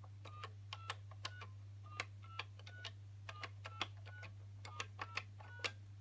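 Keys of a 1981 GPO 782 push-button touch-tone telephone pressed in quick succession, about three a second: each clunky key click is followed by a short touch-tone beep.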